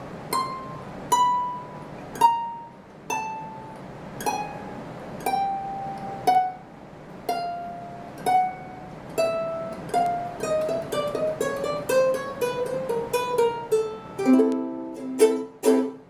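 aNueNue Moon Bird US200 soprano ukulele with black fluorocarbon strings, played as single plucked notes stepping down in pitch from high on its 18-fret neck. The notes come about one a second, then faster from about ten seconds in. A few strummed chords follow near the end.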